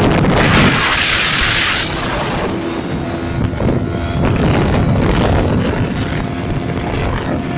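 Yamaha RX135's ported two-stroke single-cylinder engine running through an expansion chamber exhaust, with a hissing rush about a second in.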